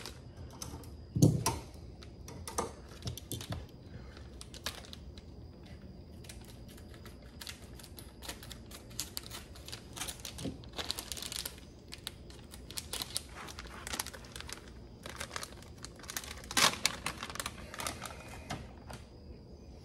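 Crinkling and rustling of a plastic soft-bait package being opened and handled, with many small clicks and a louder knock about a second in.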